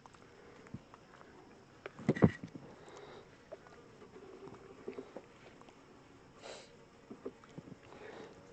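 Honey bees buzzing as a low, steady hum around an open hive, with scattered light clicks and one sharp, loud knock about two seconds in.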